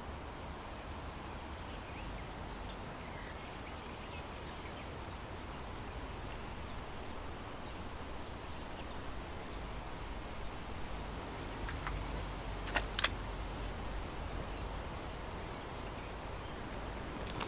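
Steady outdoor background noise with a low rumble. A brief hiss and a few sharp clicks come about two-thirds of the way through.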